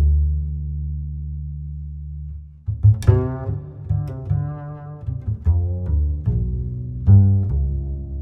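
Background music in a low register: one long held deep note, then from about three seconds in a run of separate plucked and bowed notes.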